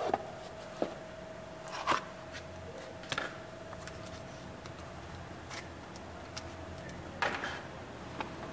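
Irregular clicks and light knocks from hands handling a wristwatch, its black band and a clear plastic display stand, with a faint steady hum underneath.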